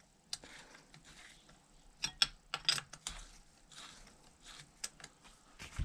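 A hex key turning in the spindle of a Shimano Ultegra pedal as it is threaded tight into a crank arm: scattered sharp clicks and ticks, with a cluster of them about two to three seconds in.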